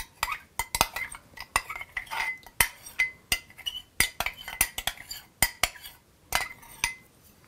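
A speckled blue enamelware spoon scraping and clinking against a glass measuring cup while sticky maple syrup is scraped out: many quick, irregular clicks, each with a short glassy ring, stopping about a second before the end.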